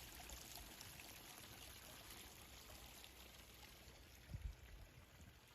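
Faint babbling water running steadily, a soft even rush with no pattern in it. About four seconds in there is a brief low thump.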